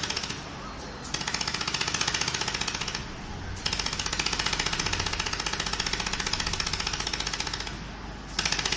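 Pulsed fiber laser welder firing a rapid, even train of sharp snaps while welding the bottom seam of a stainless steel teapot. The pulsing stops briefly three times: about half a second in, about three seconds in, and near the end.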